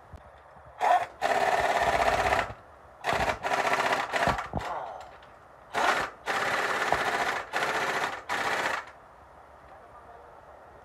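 Impact wrench hammering on the lug nuts of a semi-trailer wheel hub, in a string of short bursts of rapid rattling with brief pauses between them.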